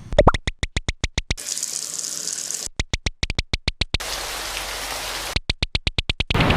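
Three quick runs of sharp clicks, about eight a second, each cut off abruptly and followed by a stretch of gushing hiss.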